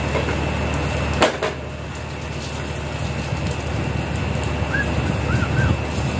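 Steady low hum of a ship's engine running, with a single sharp knock about a second in and a few short squeaks near the end.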